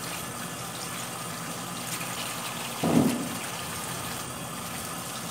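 Kitchen tap running steadily onto hands and a sink full of small green citrus fruits as they are washed, with one short low thump about three seconds in.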